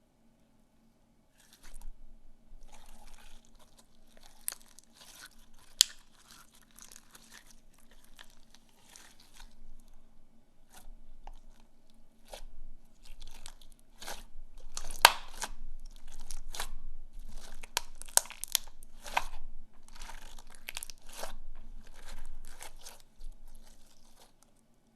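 Slime being squished and worked by hand: irregular crackling pops and clicks that start about a second and a half in and stop shortly before the end.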